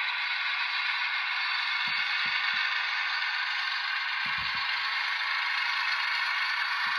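ESU LokSound 5 sound decoder in an HO-scale Atlas B23-7 diesel model, playing its engine with the dynamic brake switched on: a steady hiss-like blower sound from the model's small speaker, with a few faint low knocks.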